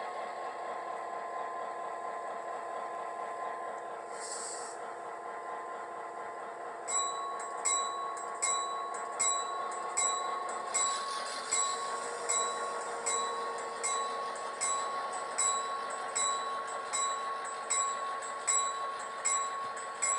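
Model diesel locomotive engine sound from a small onboard speaker, a steady drone. About a third of the way in, a regular metallic clink starts, repeating a little more than once a second, and the engine note strengthens.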